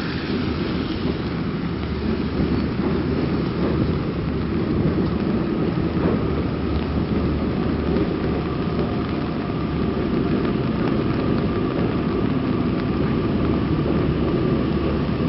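Steady rumbling noise of rain and traffic on a wet road, heaviest in the low end. A faint steady hum joins it about two-thirds of the way through.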